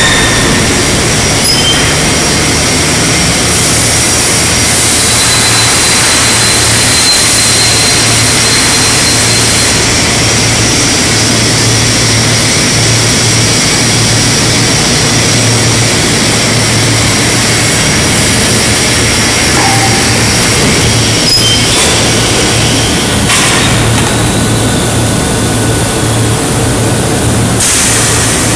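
Loud, steady industrial din of a steel fabrication shop: machinery running with a constant low hum under a broad rumble and hiss.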